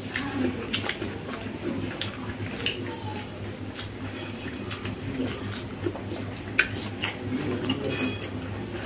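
Wet, sticky eating sounds: fingers squishing and mixing rice into egg omelette curry on plates, with lip smacks and chewing, as many short irregular clicks over a steady low hum.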